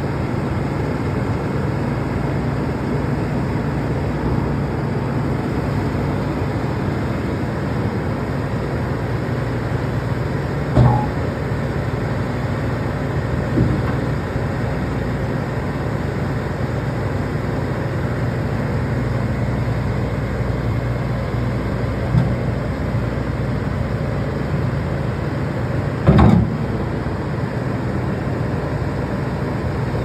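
Hitachi ZX135US excavator's four-cylinder diesel engine running steadily while the boom and bucket are worked, with a few short clunks, the loudest about eleven seconds in and again near the end.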